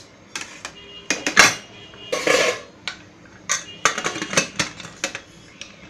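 Spatula scraping and knocking against a pressure cooker pot, then the cooker's lid being set on and closed with a quick run of metallic clanks.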